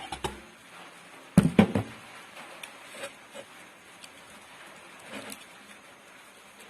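Hands laying copper winding wire into a grinder motor's stator slots: scattered light clicks and rustling, with a short run of knocks about a second and a half in.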